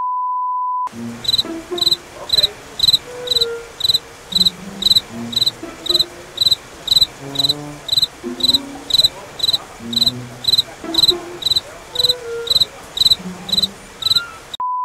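A steady 1 kHz test-tone beep for about the first second, the bars-and-tone signal, which returns just at the end. Between the tones a cricket chirps at an even pace, about two short high chirps a second, used as a sound effect over a wordless pause.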